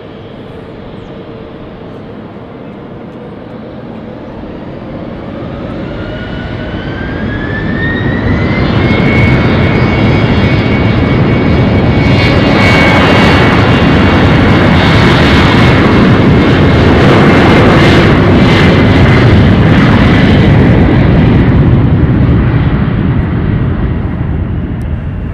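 Embraer E190's twin turbofan engines spooling up for take-off, with a rising whine that climbs for a few seconds. About nine seconds in they reach a loud, steady roar as the jet accelerates down the runway, and the sound fades near the end as it moves away.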